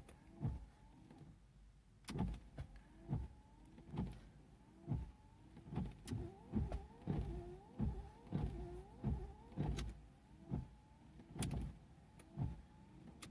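1995 Honda Civic's windshield wipers running on the newly fitted wiper switch. The wiper motor whirs with a pitch that rises and falls on each sweep, and there is a knock at each stroke, about one or two a second, starting about two seconds in.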